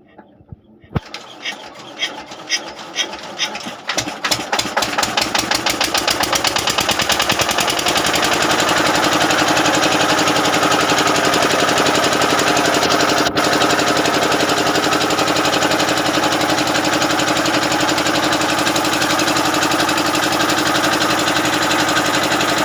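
Diesel generator engine being started: a few slow, widely spaced strokes that quicken as it fires, catching on the first attempt and settling after about eight seconds into steady running.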